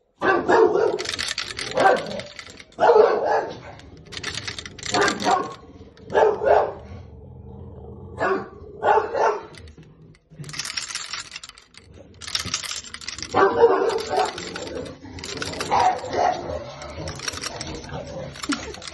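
English bulldogs barking in a string of loud barks about a second apart, mixed with the clicky clatter of coat hangers.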